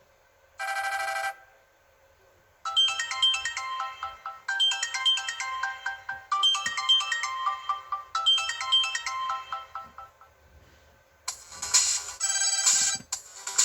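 Samsung Star 2 mobile phone playing its ringtones through its loudspeaker: a short single tone, then a bright electronic melody of quick notes whose phrase repeats four times, then a different, louder ringtone starting near the end.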